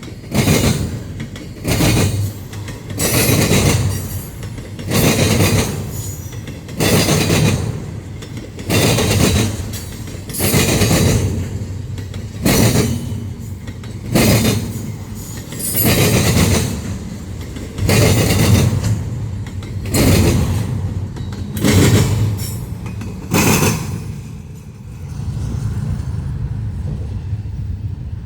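Intermodal freight train passing close by, its cars going by in a regular series of loud surges of wheel and rail noise, one about every one to two seconds. The surges stop about 24 seconds in, leaving a quieter steady rumble.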